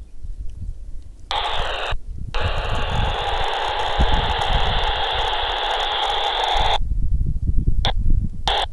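Baofeng UV-B2 Plus handheld radio's speaker hissing with FM static, its squelch opening about a second in, dropping briefly, then cutting off sharply after about five seconds, with a few short blips near the end. Wind rumbles on the microphone throughout.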